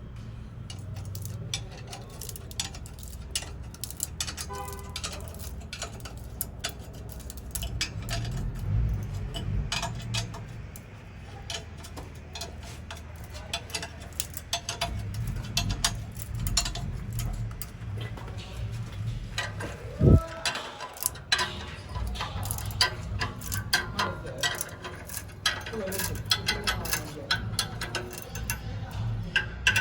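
Hand tools clicking and clinking on metal, with ratchet-like ticking, over a steady low rumble. There is one sharp knock about twenty seconds in, while an exhaust pipe is being fitted.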